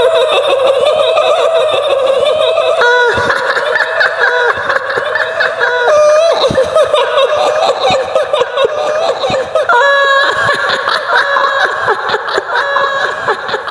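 High-pitched, drawn-out female ghost laughter of the kuntilanak kind, a wavering cackle that thickens into several overlapping laughs about three seconds in.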